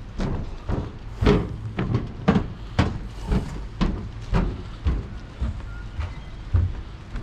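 Footsteps on a wooden marina pontoon deck, walking at about two steps a second, over a steady low rumble.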